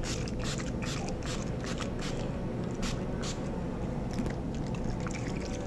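NYX Dewy Finish setting spray pump mister spritzed over a face in a rapid series of short hisses, about three a second. The hisses thin out and grow fainter after about three and a half seconds.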